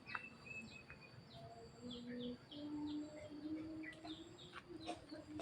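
Birds calling: many short chirps that sweep downward in pitch, over several low, steady held notes.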